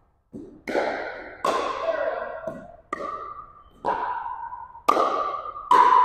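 Pickleball rally: about seven sharp pops of paddles and the plastic ball in six seconds, coming faster toward the end, each ringing out with a hall-like echo.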